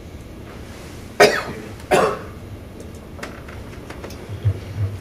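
A person coughing twice in quick succession, about a second in, the two coughs under a second apart, followed by a few faint clicks.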